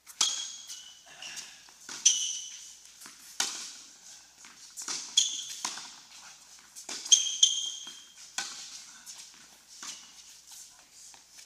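A tennis serve and rally: sharp hits of the ball on racket strings, with a ringing ping, and bounces on the hard court, coming about every one to two seconds, each echoing in the hall.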